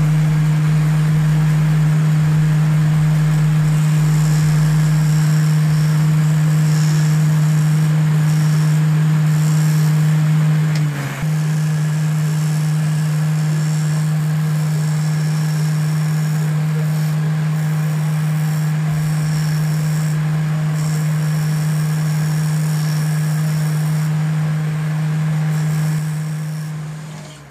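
Jeweller's lathe running steadily with a low, even hum while it spins a gold bangle on its mandrel against a cutting tool. The hum dips briefly about eleven seconds in.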